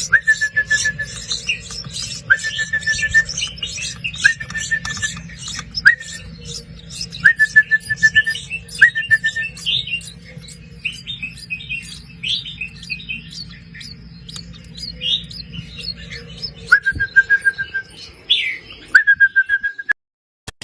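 Baby birds chirping rapidly and continuously in high, thin peeps, with a steady whistled note of just under a second repeated every couple of seconds. The sound cuts off suddenly shortly before the end.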